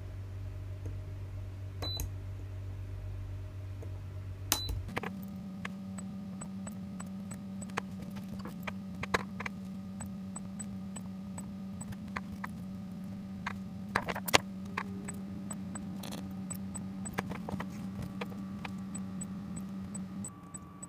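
Handheld pen spot welder fusing nickel strip onto 21700 lithium-ion cells: a string of sharp, irregularly spaced snaps over a steady electrical hum, with runs of faint high ticks between them.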